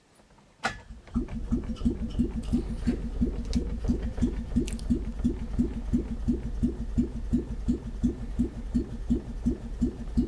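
A click, then an old car's petrol engine being cranked over by its starter motor, turning with an even chug of about three compression pulses a second and never firing. It is dosed with easy start, but no spark seems to be reaching the plugs.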